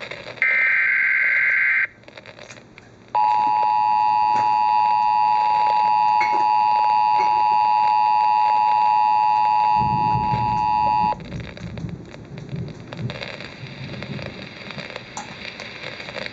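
Emergency Alert System broadcast heard over a radio. It opens with the end of a short burst of warbling digital header tones, then a pause. Then comes the steady two-tone attention signal, held for about eight seconds, which cuts off abruptly into faint radio noise.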